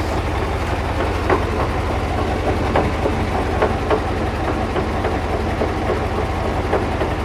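KamAZ truck's diesel engine running steadily, with irregular metallic knocks from the drive-axle reducer on top: the knock being tracked down in the axle gearbox.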